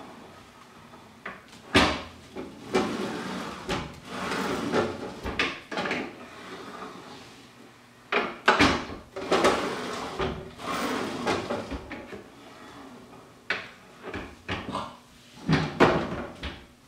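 Makita compound miter saw handled by hand with its motor off: sharp clunks and knocks, with stretches of scraping and rattling as the head is pulled down and raised and the turntable is swung.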